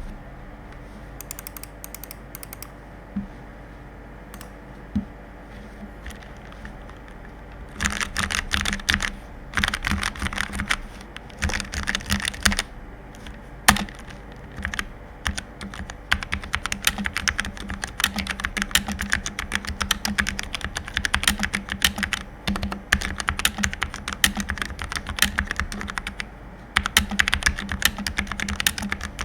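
Typing on a Redragon Anivia K614 low-profile mechanical keyboard with Outemu red linear switches. A few scattered keystrokes come first, then fast continuous typing from about eight seconds in, broken by brief pauses.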